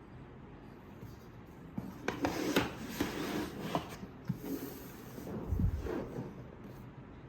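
Hands handling packaging while unboxing a small mining device: rustling and rubbing with a few sharp clicks from about two seconds in, and a low thump a little past the middle.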